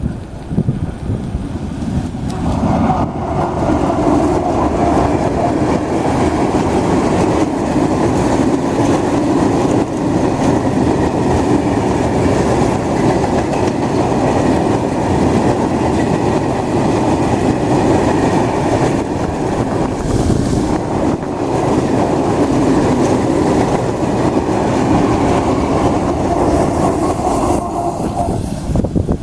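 Block freight train of Eas open wagons rolling past: a loud, steady rumble of steel wheels on the rails. It sets in about two seconds in and stops near the end as the train clears.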